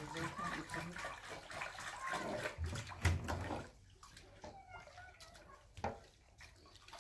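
Water running and splashing for about three and a half seconds, then stopping; a few light knocks follow.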